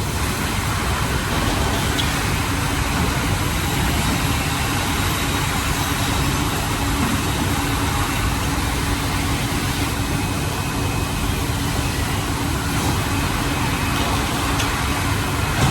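Plywood sanding machine running continuously: a steady, even rush of machine noise with a constant hum underneath.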